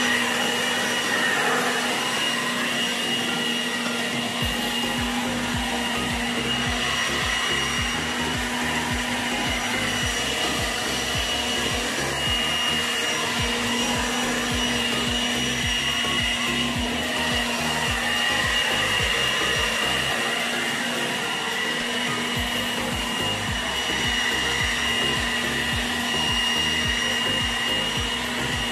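Handheld electric leaf blower running steadily: a constant motor whine over a rush of air.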